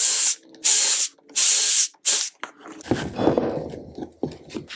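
DeWalt Atomic 20V cordless drill boring holes through a jig into a wooden board: four short bursts of drilling in the first two seconds or so. Then irregular knocking and rubbing as spring clamps are worked off the wood.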